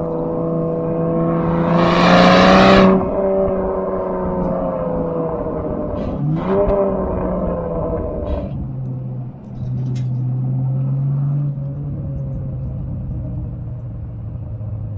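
BMW X6 running on the road through an aftermarket TNEER cat-back exhaust. The exhaust note shifts through gear changes, with a loud rush of noise about two seconds in and a dip and rise in pitch around six seconds. It then settles into a lower, steady drone.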